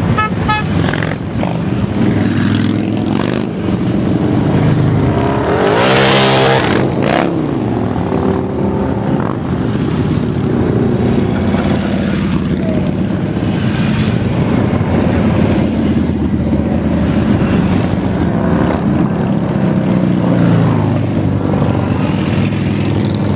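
A procession of cruiser and touring motorcycles, Harley-Davidsons among them, riding past one after another with a continuous engine rumble. About six seconds in, one bike passes louder and closer, its engine note sliding in pitch as it goes by.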